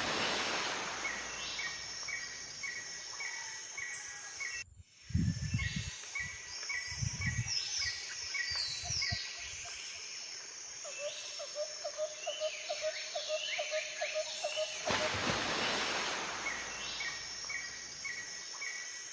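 Swamp ambience: birds and insects calling, with runs of short quick repeated chirps and higher calls that fall in pitch. Several low thumps come between about five and nine seconds in, and there are two rushes of hissing noise.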